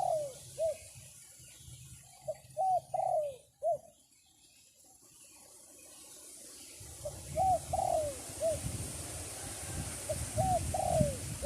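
A dove cooing in short phrases of three or four arched notes, repeated about four times. In the second half, wind rumbles on the microphone.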